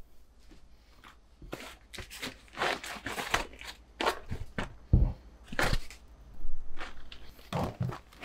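Stiff beeswax food wrap crinkling and crackling in irregular bursts as it is taken off a zucchini and folded, with a soft thump on the counter about five seconds in.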